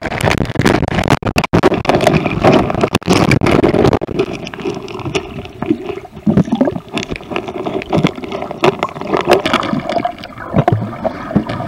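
River water splashing and gurgling right at the microphone, with rough crackling and rubbing handling noise throughout.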